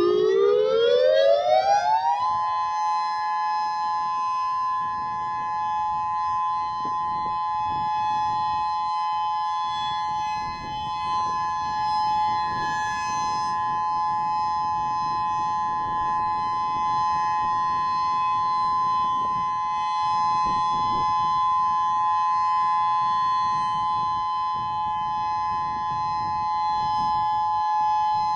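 Federal Signal Modulator 8032B electronic outdoor warning siren sounding its steady Alert signal. The pitch rises for about two seconds, then holds level as a steady two-note tone.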